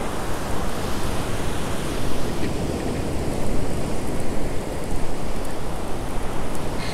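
Steady rush of ocean surf breaking and washing up a beach.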